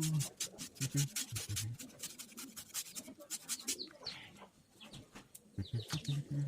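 Close-miked chewing of chicken: a dense run of wet mouth clicks and smacks, pausing briefly a little past the middle, with a few short low hums from the eater.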